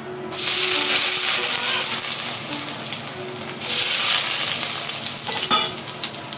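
Food sizzling in hot oil: a loud hiss starts suddenly about a third of a second in, dies down, then flares again a little past halfway as more is stirred or added. A sharp clack, like a utensil striking the pan, comes near the end.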